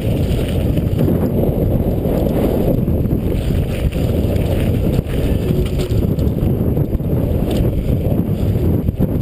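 Mountain bike riding fast down a loose gravel trail: a steady low rumble of tyres on stones and wind buffeting the action camera's microphone, with occasional small rattles and clicks from the bike.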